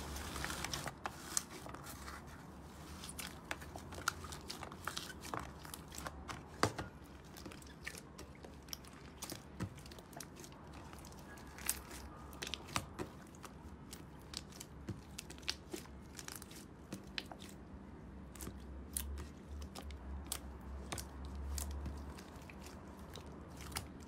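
Hands squeezing, folding and pressing blue slime mixed with small foam beads, making a steady stream of sharp little clicks, pops and crunches.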